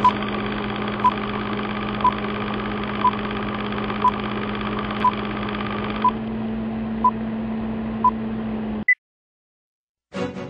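Film-leader countdown sound effect: a steady whirring run with a low hum and a short beep each second, nine beeps in all. A single higher beep comes about nine seconds in and the sound cuts off, and music begins near the end.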